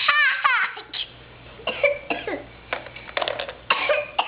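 A young child's high voice making short wordless sounds and squeals, with a falling squeal about half a second in. A quick run of small clicks comes a little after three seconds.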